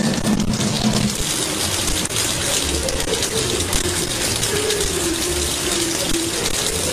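Kitchen faucet running in a steady stream, water splashing into the sink, with a low wavering tone running under it.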